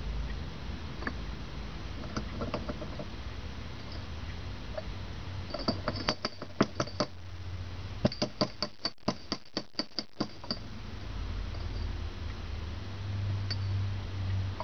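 Light metallic clicks and taps from the steel pipe and fittings of a homemade press being handled and pressed. There is a short run of clicks about six seconds in, then about a dozen quick ringing ones at about five a second, over a steady low hum.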